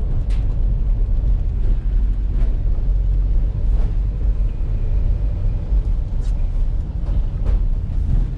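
A van driving, heard from inside the cab: a steady low rumble of engine and road noise, with a few faint clicks and rattles.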